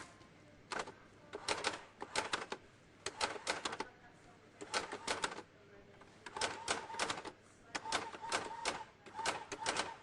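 Electronic typewriter typing in short bursts of several quick keystrokes each, with brief pauses between the bursts.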